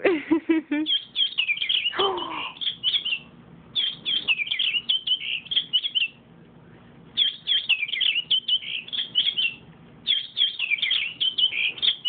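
Toy robin playing its recorded chirping and tweeting, in four bursts of about two seconds each with short pauses between.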